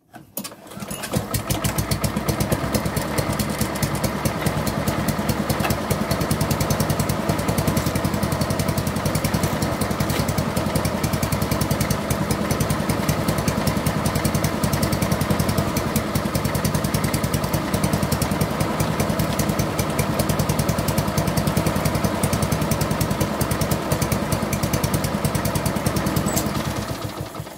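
Petrol lawnmower engine running steadily at speed, stopping shortly before the end.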